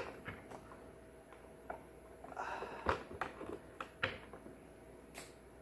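Scattered light clicks and taps of small plastic toy figures being handled and set onto a plastic toy airship, with a brief rustle about two and a half seconds in.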